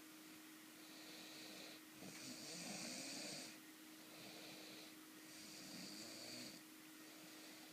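Someone asleep snoring slowly and regularly. There are two full breaths, each a softer rasp followed by a louder one, with a faint steady hum underneath.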